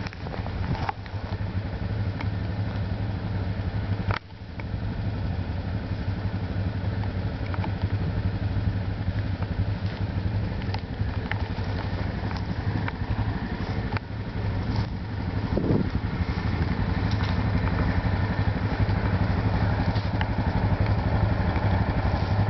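Steady low hum of an idling engine, with a few faint clicks and a brief drop about four seconds in.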